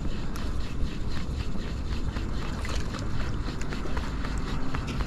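Wind buffeting the microphone as a steady low rumble, with many small irregular ticks over it.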